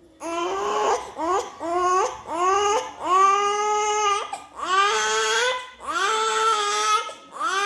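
Four-month-old baby crying in a run of wails. Short cries come first, then longer cries of about a second each, then a short one again near the end.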